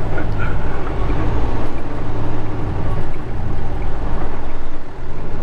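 Semi-truck's diesel engine running under way, with road noise, heard from inside the cab as a steady low rumble.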